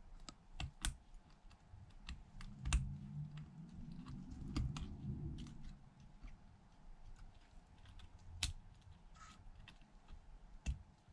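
Small, irregular metal clicks and taps as tiny screws and tweezers are handled on the metal bracket plate inside an iPhone, with a soft low rumble of handling in the middle.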